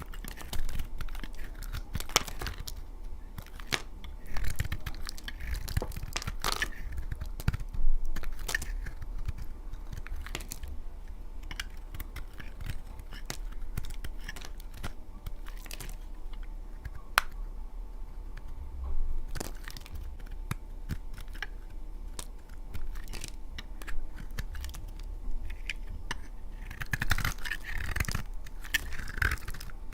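A knife cutting dry laundry soap: crisp cracks and crunches at irregular intervals, with a denser crumbling stretch near the end.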